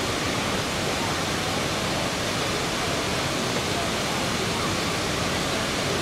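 Cheonjiyeon Waterfall pouring into its plunge pool: a steady, unbroken rush of falling water.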